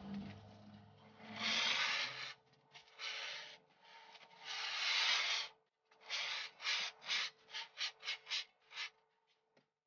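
Aerosol can of glue hissing in bursts as beads of adhesive are squirted onto foam: three longer bursts of about a second each, then a string of short spurts about two a second, stopping near the end. A faint steady hum runs underneath.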